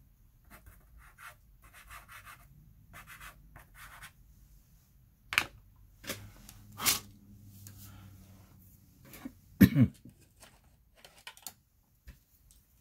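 Pastel pencil scratching on paper in short strokes, followed by a few louder sudden sounds, the loudest just under ten seconds in.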